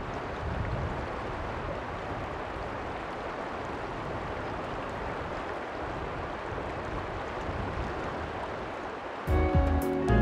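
Steady rush of flowing river water, an even hiss without a break. Music starts about nine seconds in and becomes the loudest sound.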